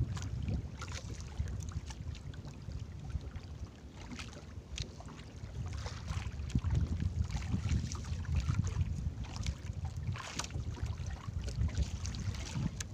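Wind buffeting the microphone and sea water sloshing against a small outrigger boat's hull, a low uneven rumble, with a few scattered sharp knocks and clicks from handling on deck.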